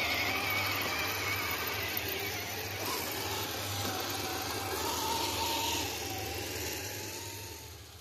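Electric motors and gear trains of 1/10-scale RC rock crawlers whining as they crawl over rocks, the pitch wavering up and down with the throttle. It gets quieter near the end.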